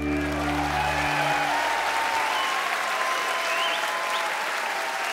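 Large concert audience applauding and cheering. The band's final held chord stops about a second in, leaving the ovation alone.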